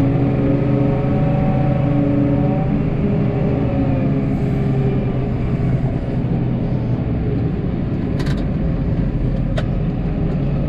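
Snowplow truck's engine running steadily, its pitch wavering in the first few seconds. Two short clicks, about a second and a half apart, come late on.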